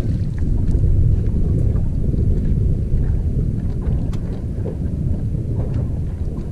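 Wind buffeting the microphone as a steady low rumble, with scattered faint clicks.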